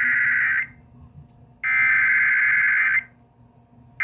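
Emergency Alert System SAME header: harsh, buzzy digital data bursts over a radio broadcast, each about a second and a half long with roughly a second of silence between. One burst ends about half a second in and a full one plays in the middle. These header bursts are the coded start of an alert relayed by the station.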